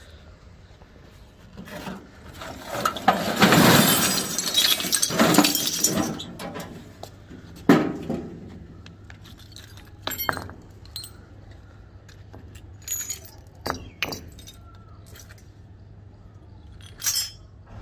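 Rusty scrap iron parts tipped out of a sheet-metal bin onto concrete, clattering and clanking together for about four seconds. One sharp clank follows, then a few scattered clinks as pieces are handled and picked through.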